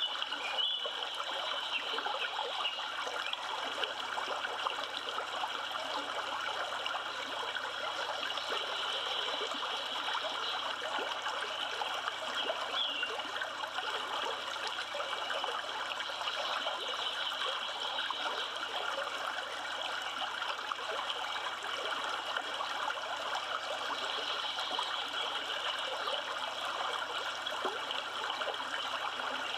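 River water flowing and rippling in a steady, even rush.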